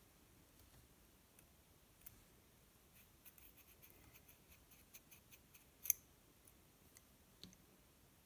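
Faint clicks and taps of small RC axle parts being handled: the steel axle shaft with its brass ring gear seated into the black plastic axle housing. A quick run of light ticks comes about three to six seconds in, with the sharpest click near six seconds.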